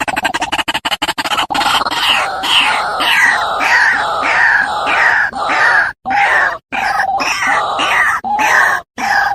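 White-breasted waterhen calling: a long series of harsh repeated notes, about two a second, each sliding down in pitch. The calling cuts out abruptly for brief moments a few times.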